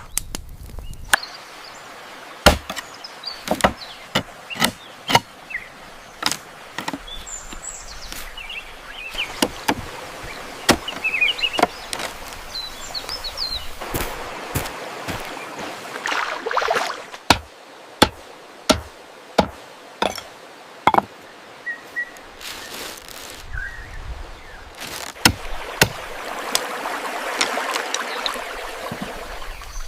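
Repeated chopping blows, irregular and roughly one every half second to a second, with birds chirping faintly between them.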